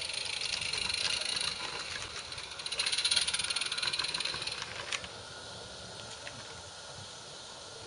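Small 16mm-scale garden railway steam locomotive and its wagons running past on the track, with rapid beats and a rattle that are loudest about three seconds in and fade after about five seconds.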